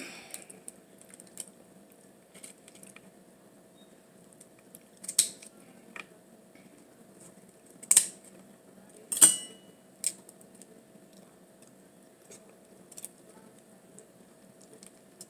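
Scattered sharp clicks and cracks of a lobster shell being broken apart and picked for meat, loudest about eight and nine seconds in, over a faint steady hum.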